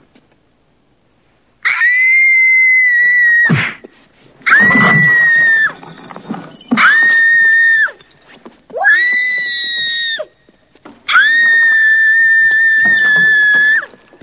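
People screaming in fright: five long, high-pitched screams one after another, each held for one to three seconds, with short gaps between. A thump sounds at the end of the first scream.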